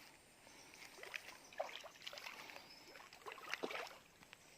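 Faint water splashing and sloshing in a run of short, irregular bursts, busiest in the middle.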